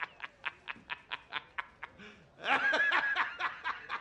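A man laughing hard in quick, staccato bursts, about five a second, with a louder, higher stretch of laughter about two and a half seconds in.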